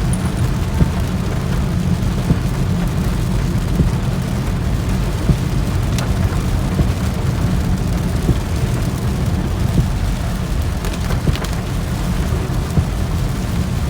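Heavy rain on a car, with a steady low rumble of the car underneath and the occasional sharp tap of drops.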